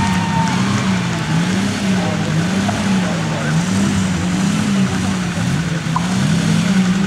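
Demolition derby car engines revving, the pitch rising and falling about once a second as the throttle is worked, with a second engine joining near the end.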